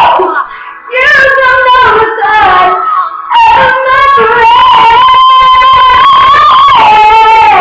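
A girl's voice belting a gospel song loudly into a webcam microphone, so loud that it hits the recording's ceiling and distorts. There are short shouted phrases with brief breaks, then one long high note held for the last four seconds that steps down slightly near the end.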